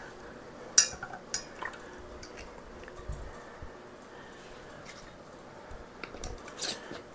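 Light metal clicks and clinks of a canning lid and screw band going onto a glass mason jar, the band twisted down by hand; the sharpest click comes about a second in, with a few more near the end.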